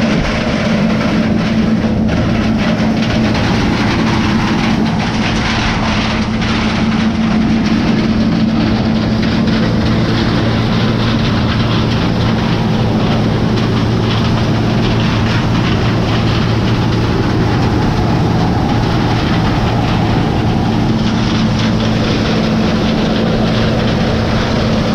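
Diesel farm machinery running steadily during corn harvest, a constant engine drone with a low hum.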